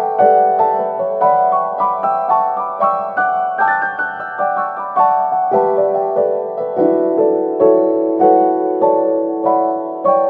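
Background piano music: a gentle run of single notes, several a second, ringing over sustained lower notes.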